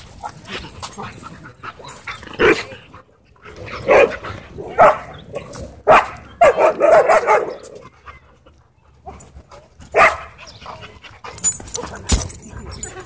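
A group of dogs barking during rough play, loud single barks every second or two with a quick flurry of barks about six to seven seconds in.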